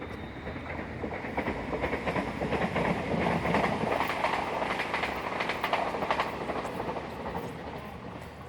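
A flock of sheep running past, their hooves clattering in a rapid patter that builds, peaks in the middle and fades away.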